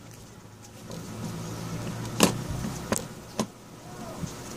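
Three sharp clicks of a screwdriver working at the screws of an electric fan's neck housing, over a low steady hum.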